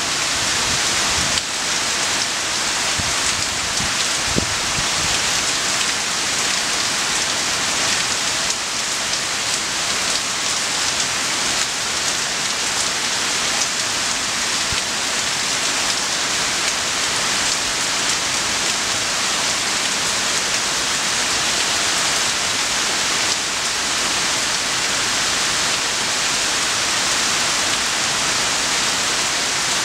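Rainstorm: a steady downpour falling on leafy trees and grass, an even, unbroken hiss.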